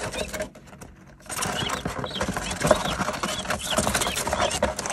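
Guinea keets peeping inside a cardboard box, a busy run of short high chirps that starts about a second in, with light scratching of their feet on the cardboard.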